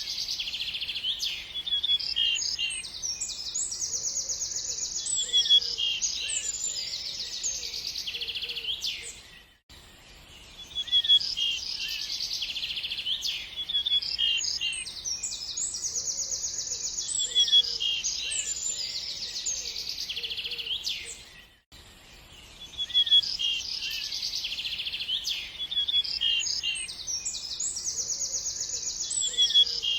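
Birds chirping and trilling in a dense, busy chorus of quick high calls. It is a short recording of about twelve seconds played on a loop, with brief dips at the joins about 10 and 22 seconds in.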